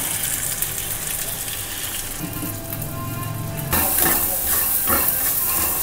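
Soft background music over faint frying, then about two-thirds of the way in a loud, steady sizzle starts suddenly: chopped red onions frying in oil in a non-stick pan, stirred with a spatula.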